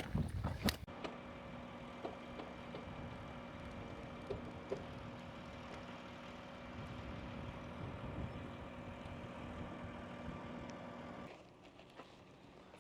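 Heavy construction-equipment engine running steadily with a constant hum, cutting off suddenly about eleven seconds in. A few knocks come in the first second.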